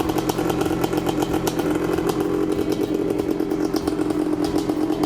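1986 Yamaha Tri-Z 250's single-cylinder two-stroke engine idling steadily through its aftermarket DG exhaust, freshly started on one kick after a complete rebuild.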